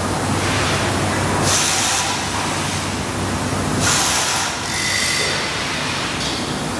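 Factory-floor machinery noise: a steady hum under a continuous rushing noise, with a few short bursts of hiss about two seconds apart.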